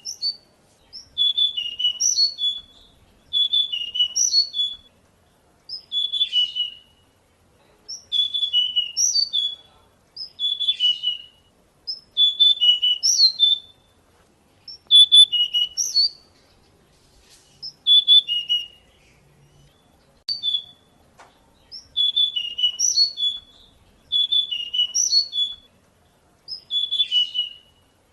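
Pied bushchat singing: a short, quick, whistled phrase repeated over and over, roughly every two seconds, with brief pauses between.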